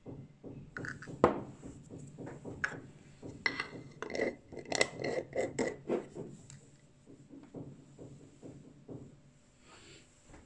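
Shiny gold wrapping paper crinkling as it is pressed and folded around a small glass jar, with light clicks of the glass against a wooden tabletop. The handling dies down in the last few seconds.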